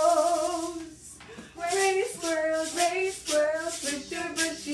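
A woman singing a children's song, with a short break about a second in, and a few short rattles of a hand-held egg shaker between the sung phrases.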